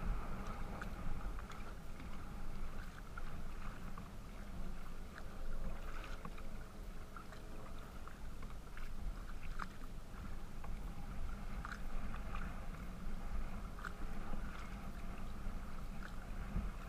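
Water lapping and splashing against the plastic hull of a Pungo 140 kayak moving through choppy water. A steady low rumble of wind and water runs under it, with many small scattered splashes and drips, heard through a deck-mounted GoPro's housing.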